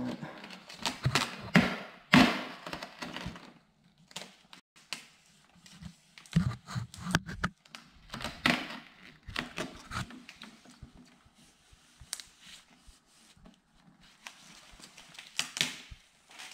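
Luxe smoked tint film crinkling and crackling in the hands as it is stretched and pressed over a car tail light. The crackles come irregularly, with the loudest about two seconds in.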